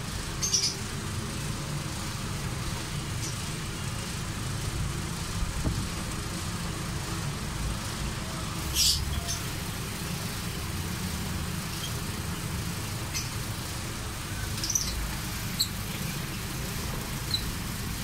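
Lovebirds in an aviary giving several short, high chirps now and then over a steady low rumble.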